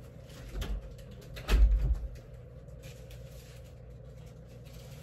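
Two dull thumps about a second apart, the second one louder, over faint rustling.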